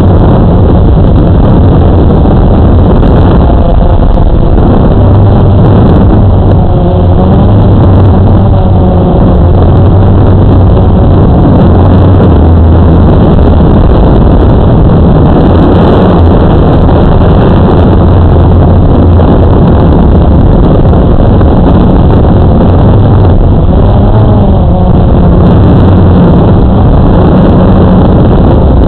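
Multirotor drone's motors and propellers buzzing loudly and steadily, heard through the drone's own onboard camera, with the pitch wavering now and then as it manoeuvres.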